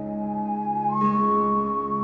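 Slow, relaxing instrumental music: a melody of long held notes over a steady low drone, stepping up to a higher held note about a second in.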